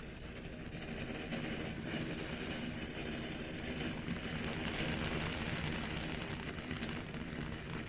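Small sparkle fountain firework (Phantom 'Savage' fountain) spraying sparks with a steady hiss that grows louder over the first few seconds. A low steady hum runs underneath.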